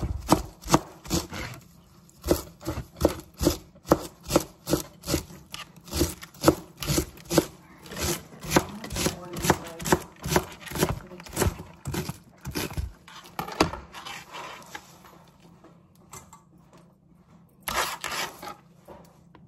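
A knife dicing fresh cilantro on a cutting board in quick, regular chops, about three a second. The chopping thins out to a few scattered strokes after about 13 seconds.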